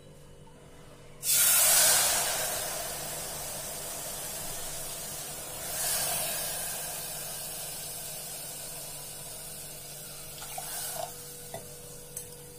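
Water poured from a bowl onto just-roasted moong dal in a hot pressure cooker, sizzling and bubbling as it hits the hot pan. It starts suddenly about a second in and slowly dies down, with a second cupful poured about six seconds in and a smaller one near the end.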